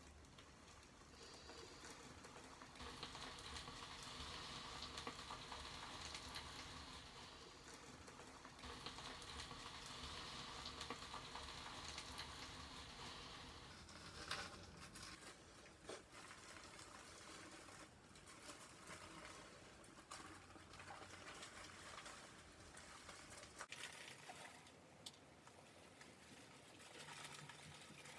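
Faint rustling and light scratching of a plastic highlighting cap as strands of hair are hooked and pulled through its holes, busiest in the first half and quieter after about fourteen seconds in.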